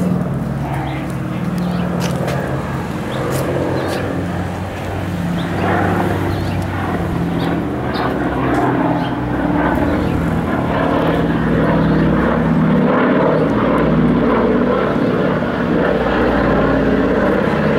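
Boeing B-17 Flying Fortress's four radial piston engines droning steadily as the bomber flies past, slowly growing louder.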